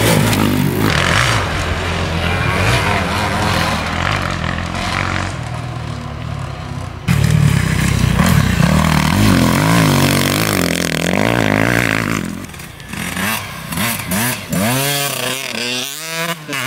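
Dirt bike engines revving hard, the pitch climbing and dropping as the riders open and close the throttle and shift through the gears. The sound jumps suddenly louder about seven seconds in. In the last few seconds the revs swing up and down in quick short sweeps.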